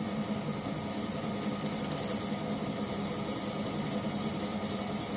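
Optimum B17 Pro bench drill press running steadily at 900 rpm, a 10 mm twist drill cutting through steel and nearly breaking out the far side; a steady motor hum throughout.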